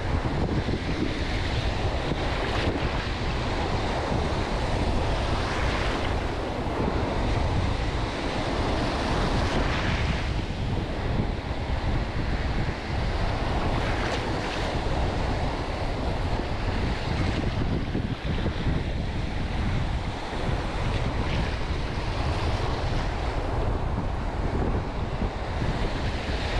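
Wind buffeting the microphone over small waves breaking and washing through shallow sea water, the surf swelling up every few seconds.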